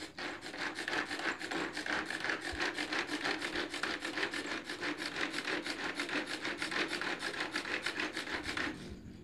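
Shallots and garlic being ground by hand: a steady, fast run of rubbing, rasping strokes, about six a second, that stops just before the end.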